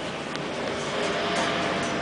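Inside a Bogdan trolleybus on the move: steady running and road noise, with a faint steady whine in the second half.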